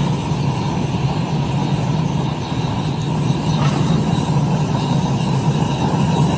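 Small DIY melting furnace running: a loud, steady noise with a low hum underneath.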